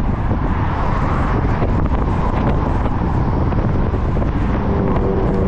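Wind buffeting the microphone of a camera on a moving bicycle, a steady low rumble, with passing cars on the highway; a car's engine hum comes in near the end as more traffic overtakes.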